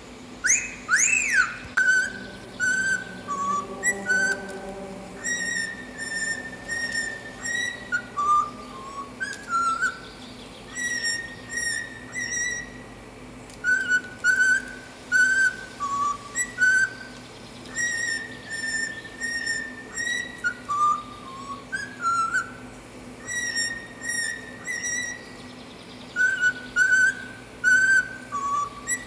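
Cockatiel whistling a tune: short, clear whistled notes in melodic phrases that rise and fall and are repeated several times.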